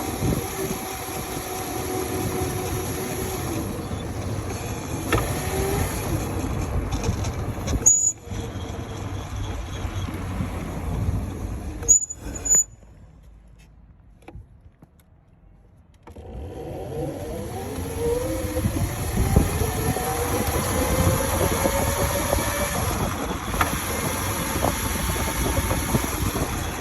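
Modified Razor RSF650 mini moto being ridden: its motor whines with a pitch that rises and falls as the speed changes, over a steady low rumble of wind and road. The sound drops away for a few seconds about halfway through, then the whine climbs again.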